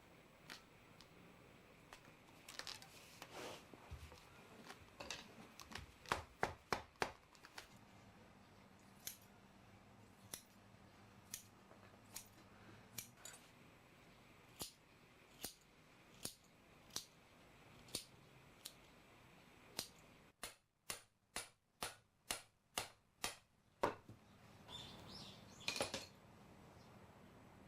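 A series of short, sharp clicks or snips, about one a second, with a quicker run of about three a second about two-thirds of the way through.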